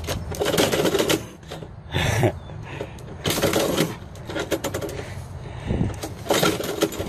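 Metal door mail-slot flap clacking and paper envelopes rustling as mail is pushed through and shoved back out by a cat, in a few short bursts of clattering.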